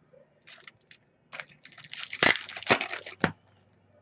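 Foil trading-card pack wrappers crinkling and tearing as packs are opened. A dense stretch of rustling and sharp crackles fills the middle, with a few quieter rustles just before it.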